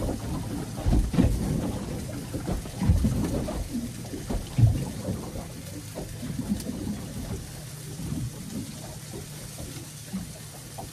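Wind buffeting the microphone in uneven gusts, a low rumbling with several heavy thumps in the first half that eases towards the end, over a steady hiss.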